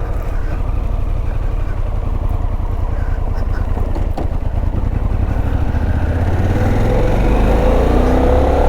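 Harley-Davidson Pan America's V-twin engine running as the motorcycle rides slowly across sand. The engine picks up a little in the last couple of seconds.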